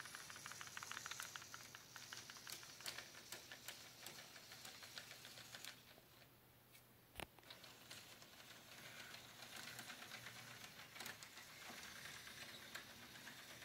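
Model train running on its track: faint, rapid clicking and rattling of the wheels over a low steady hum, with one sharp click about seven seconds in.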